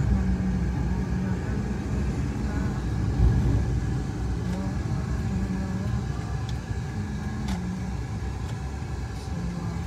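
Steady road and engine noise of a car being driven, heard from inside the cabin: a continuous low rumble of tyres and engine.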